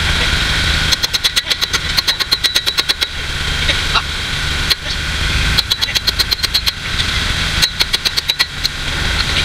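Kubota tractor's diesel engine running steadily, with three runs of rapid, even ticking, about ten a second.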